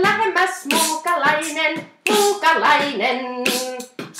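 A woman's wordless vocalising, warbling sung tones mixed with beatbox-style vocal hits, in about three phrases that each start sharply.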